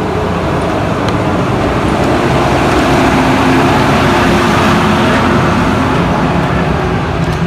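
Yamaha RX-King's two-stroke single-cylinder engine running through its gutted original exhaust muffler, with its revs and loudness swelling a little in the middle.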